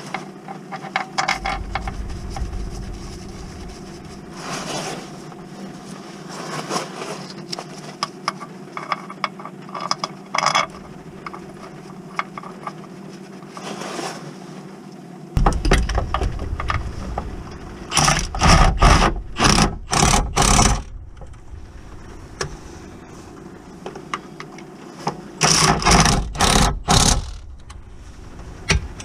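Socket tools working on bolts on a car's gearbox casing. Scattered metallic clicks and scrapes come first, then two runs of about five short, loud bursts each in the second half, over a steady low hum.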